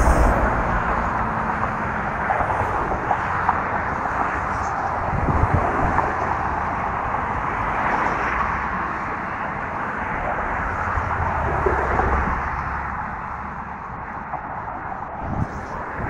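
Traffic driving over a bridge: a steady wash of tyre noise with engine rumble swelling and fading as vehicles pass, quieter about three-quarters of the way through. Wind buffets the microphone at times.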